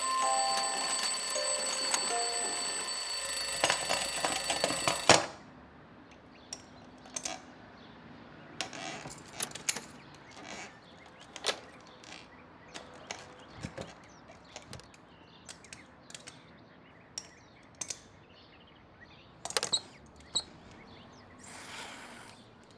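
An alarm clock bell rings continuously, with a few music-box-like notes beneath it, and is cut off suddenly about five seconds in. After that there are only faint, scattered clicks and small taps at a workbench.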